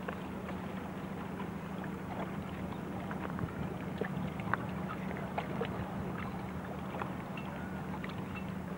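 A steady low hum with water lapping and splashing in many small scattered clicks at the harbour edge.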